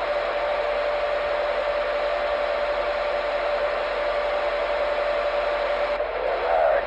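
CB radio receiver hissing with static, with a steady whistle tone riding on it, as from an unmodulated carrier on the channel. The whistle cuts off about six seconds in and a garbled, wavering voice-like sound comes through near the end.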